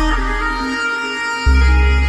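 Background music: a melody of held notes over a deep bass that drops out about halfway through and returns with a thump near the end.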